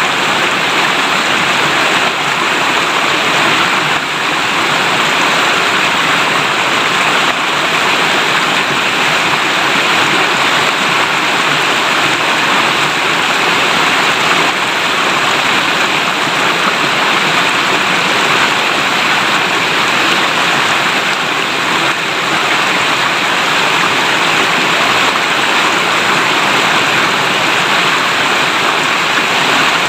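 Clear river water babbling and rushing over stones in a steady, loud flow.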